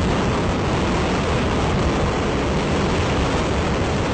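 Ares I first-stage five-segment solid rocket motor firing in a static test: a loud, steady rush of noise that holds an even level throughout.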